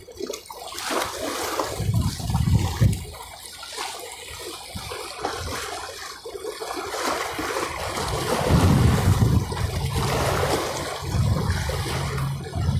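Seawater washing and splashing against the foot of a breakwater, swelling about two seconds in and again from about eight seconds.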